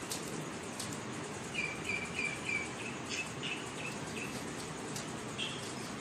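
Parrot chirping: a quick run of about nine short, even chirps over a few seconds, then one higher chirp near the end, over a steady background hiss.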